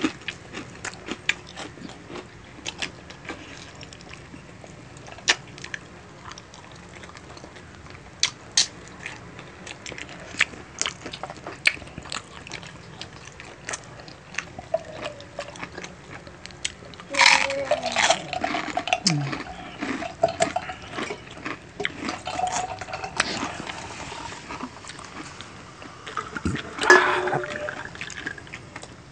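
Close-miked wet eating sounds of two people sucking and chewing sauce-coated adobo chicken feet: lip smacks, slurps and many sharp mouth clicks. A louder, busier stretch of slurping comes about seventeen seconds in, and another short loud one near the end.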